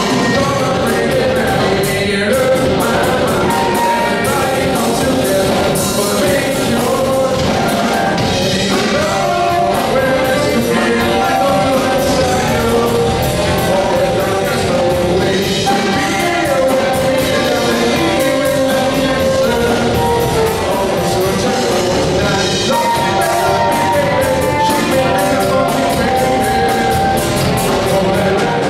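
A rock band playing with a lead singer and backing vocals over a steady drum beat.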